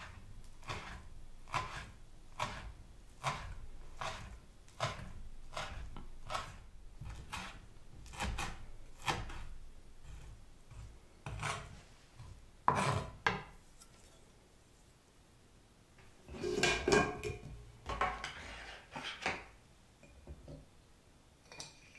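Kitchen knife chopping greens on a wooden cutting board in even, unhurried strokes a little more than once a second. Near the end comes a few seconds of the blade scraping across the board, gathering the chopped greens into a pile.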